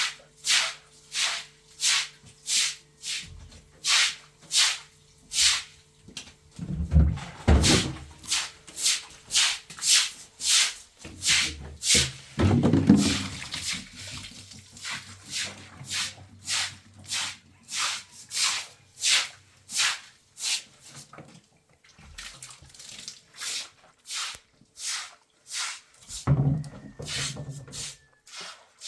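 Rhythmic back-and-forth scraping strokes of hand tool work, about one and a half a second, with a few brief lower, louder sounds in between.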